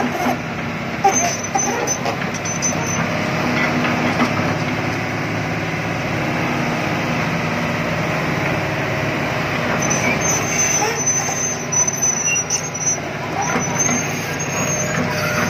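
Hydraulic crawler excavator's diesel engine running steadily under load while the boom swings the raised bucket.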